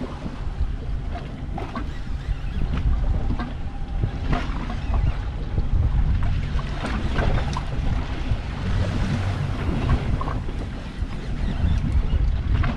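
Wind buffeting the microphone and water sloshing against the hull of a drifting boat on open sea, with scattered light clicks and knocks.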